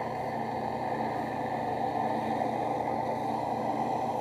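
Benchtop drill press running with a sanding drum in its chuck, the edge of a leather holster held against the spinning drum: a steady motor hum with the hiss of the abrasive on the leather over it.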